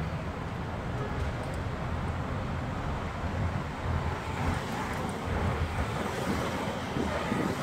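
Steady road noise of a moving car, heard from inside the car, with other traffic passing close alongside.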